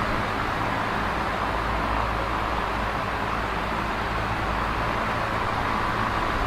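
Large box fan running steadily: an even rush of air with a low hum beneath it.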